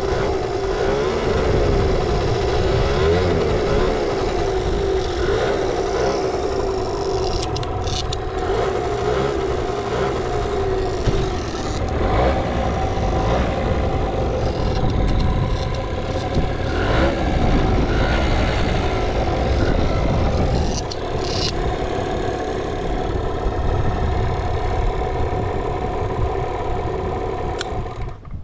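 Suzuki Street Magic 50's two-stroke single-cylinder engine running, its pitch wavering a little in the first several seconds and then holding steady. The seller presents it as running with no abnormal noise.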